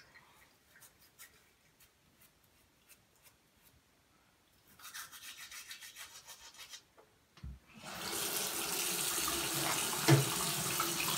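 A toothbrush scrubbing on teeth in quick strokes for about two seconds, a dull knock, then the bathroom tap turned on and water running steadily into the sink.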